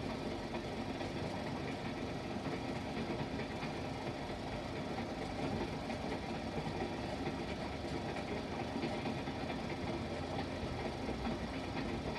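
Steady rumble of a moving passenger train, as a sound effect on an old optical film soundtrack.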